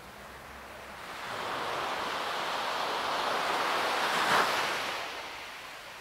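Ocean surf: one wave swells up over a few seconds, crests and breaks about two-thirds of the way through, then draws back.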